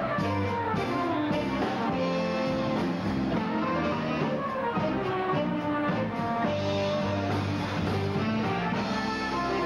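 Flugelhorn playing a melody of held, changing notes with a backing band.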